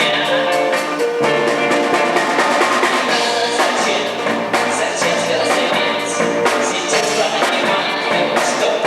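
A band playing a song, with the drum kit to the fore: a steady beat of snare and bass drum hits under guitar and other instruments.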